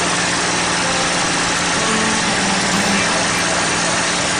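P-51 Mustang's Packard Merlin V-12 engine running steadily in cruise flight, heard from inside the cockpit as a loud, even drone mixed with airstream rush.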